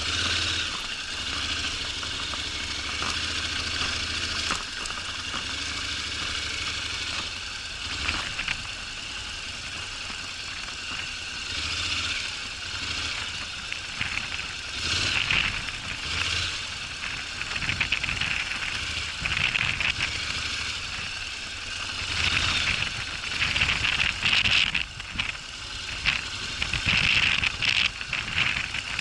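Honda NC750X DCT motorcycle's parallel-twin engine running at low revs over rough ground, with frequent knocks and rattles from the bike and terrain, busier in the second half.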